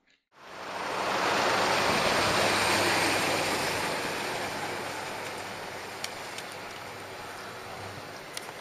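PAZ minibus passing and pulling away along the road: a rush of tyre and engine noise that swells in about half a second in, then slowly fades as the bus draws off.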